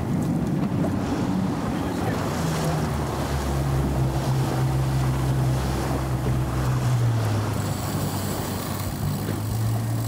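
A boat's single engine running under way, with water rushing past the hull and wind buffeting the microphone; the engine note drops slightly about seven seconds in.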